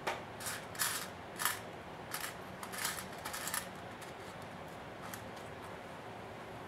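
Small metal screws and washers clinking and rattling in a metal muffin tin as fingers pick through them: a run of light, sharp clinks that stops about three and a half seconds in.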